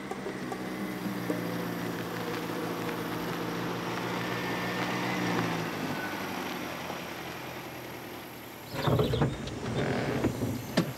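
An old car's engine running as the car drives up on a dirt road, then louder and rougher near the end as it pulls up close.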